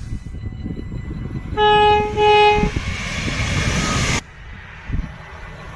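Train horn sounding two short blasts on the same note, over the rumble of a passing train. A few seconds later the sound cuts abruptly to a quieter rumble.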